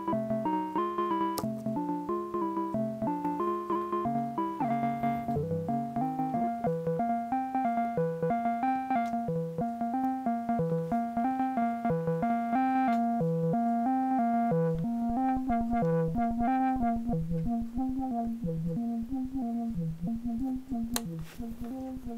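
Moog Subharmonicon analog synthesizer running a looping step-sequenced pattern of short notes in several voices at once. The filter cutoff is stepped by the second sequencer and the filter envelope sweeps the first oscillator's pulse width. The pattern shifts its intervals a few seconds in, and later thins out as knobs are turned.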